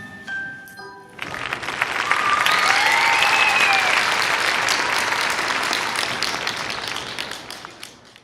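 The last chime-like notes of the routine's music stop about a second in, and audience applause takes over and fades out near the end. A single long cheering shout rises and falls over the clapping.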